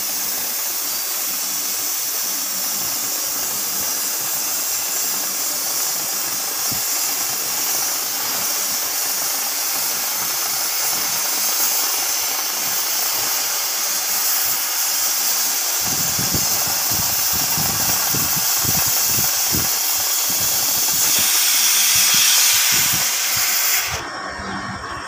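CNC cutting torch piercing through thick steel plate: a loud steady hiss of the cutting jet, with a low rumbling noise joining about two-thirds of the way through. The hiss cuts off sharply about a second before the end.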